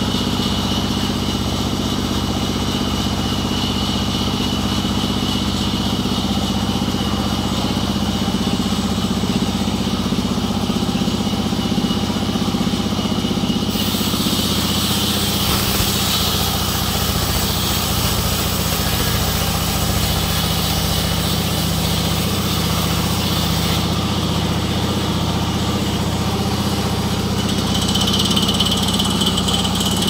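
Large sawmill band saw running with a steady machine hum as its blade cuts through a jackfruit log. A brighter, hissier sawing sound comes in about halfway through and lasts about ten seconds.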